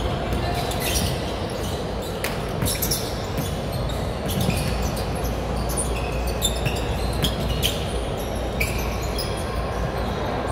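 Basketball game on a hardwood gym floor: a ball bouncing and sneakers squeaking in short bursts, over a steady echoing din of the large hall.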